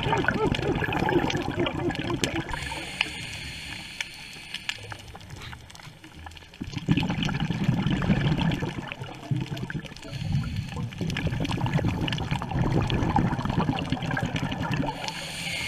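Scuba divers' exhaled air bubbling out of their regulators, heard underwater as a low gurgling rumble in uneven pulses. The bubbling dies down in the first few seconds and picks up again about halfway through.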